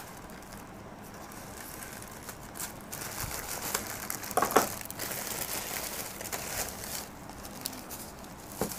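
Plastic courier mailer crinkling as it is cut open with scissors and handled, then bubble wrap crinkling as a wrapped package is pulled out, with a sharper knock about halfway through.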